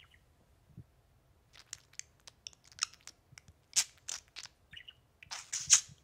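Budgerigar chattering: after a quiet start, from about a second and a half in, a run of short, scratchy chirps and clicks, the loudest near the end.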